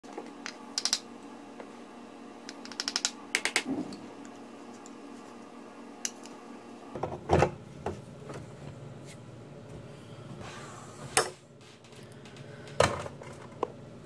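Scattered metal clicks and knocks of an espresso portafilter and tamper being handled and locked into a Gaggia Classic's group head, with a quick run of clicks early on and single sharp knocks later, the last of them as shot glasses are set on the metal drip tray.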